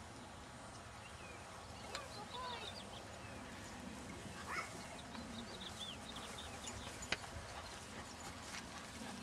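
Standard poodle puppies playing, giving faint short high squeaks and whines in small clusters over a steady outdoor background. A single sharp click about seven seconds in.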